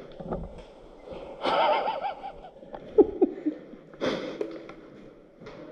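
A person's voice in short, indistinct sounds with no clear words, the strongest about one and a half seconds in.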